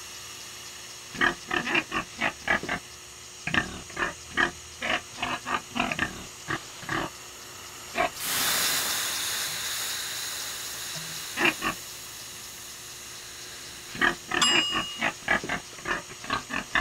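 A pig grunting in quick runs of short grunts. About eight seconds in, a sudden long hiss of steam as water is ladled onto hot sauna stones, fading away over several seconds, then the pig grunts again near the end.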